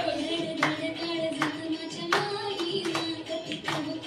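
Hands clapping together in a steady rhythm, a clap a little more often than once a second, over music with singing.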